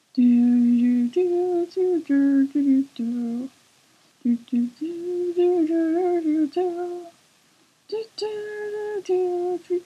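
A single voice humming a slow melody on 'do-do-do' syllables, with no accompaniment. It comes in phrases, with short pauses about three and a half and seven seconds in.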